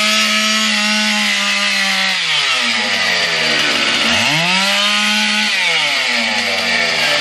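Chainsaw revving: held at high speed, it drops back toward idle about two seconds in, is revved up again about four seconds in, and falls back once more near the end.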